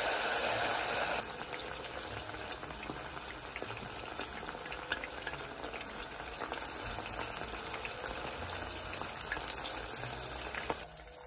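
Battered pork belly strips deep-frying in hot soybean oil: a dense, crackling sizzle, loudest for the first second or so, then steady, with a few light ticks. It drops away just before the end.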